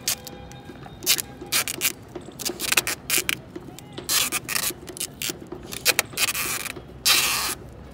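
Wide cello (packing) tape being pulled off its roll in a series of short noisy pulls as it is wrapped around a scooter's rear tyre, the longest pull about seven seconds in.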